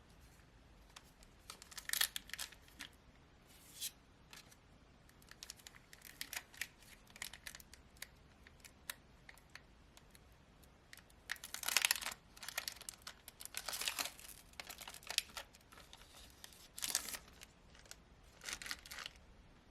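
Foil wrapper of a Pokémon trading card booster pack being torn open and crinkled: a run of short rips and rustles, the loudest about twelve seconds in.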